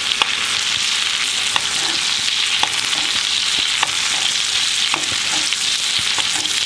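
Steak frying in foaming butter in a skillet while it is basted, a steady sizzling hiss with scattered sharp pops and clicks.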